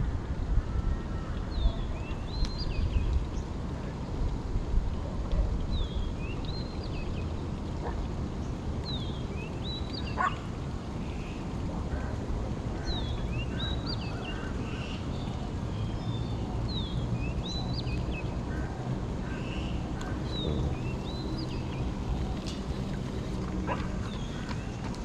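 Repeated short, high chirps from an animal, falling in pitch and coming in quick pairs and triplets every second or two, over a steady low rumble.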